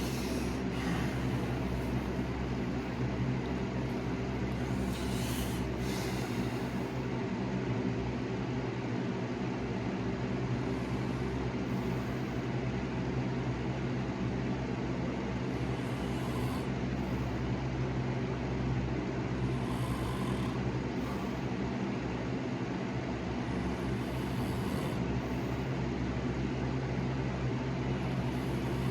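Steady low machine hum made of several even, unchanging pitches, with faint short hisses every few seconds.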